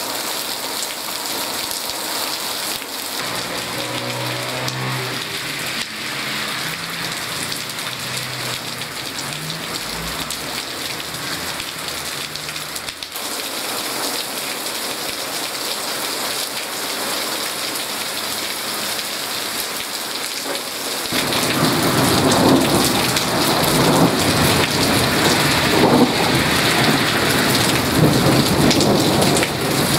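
Steady rain falling hard in a thunderstorm. About two-thirds of the way in, the sound grows louder and deeper as thunder rumbles and keeps going to the end.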